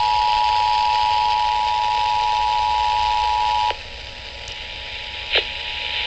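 Emergency Alert System attention signal, the steady two-tone alert, played over an FM broadcast through a radio's speaker with hiss behind it. It drops away suddenly about three and a half seconds in, leaving fainter static and a click near the end.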